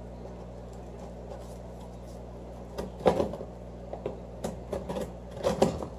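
Cardboard shipping box being handled: short knocks and scrapes about three seconds in and again in a run near the end, over a steady low hum.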